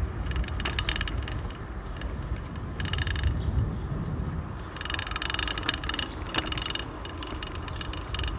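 Mountain bike's rear freehub ratcheting in three spells of rapid ticking as the rider coasts between pedal strokes, over a low rumble of tyres and wind.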